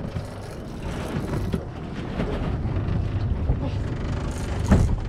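Steady low rumble of a small fishing boat under way, with wind buffeting the microphone. A single sharp knock sounds near the end.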